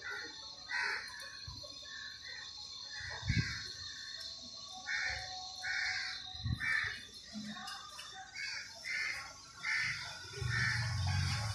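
Kittens mewing in a run of short, repeated calls, about one or two a second, with two dull thumps along the way.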